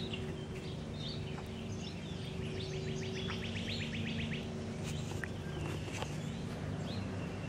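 A songbird's fast trill, a rapid run of chirps lasting about two seconds and starting a couple of seconds in, with scattered single chirps and a steady low hum underneath.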